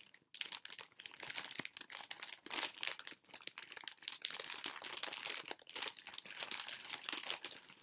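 Packaging crinkling and rustling in irregular crackles as a mailed package is opened and handled by hand.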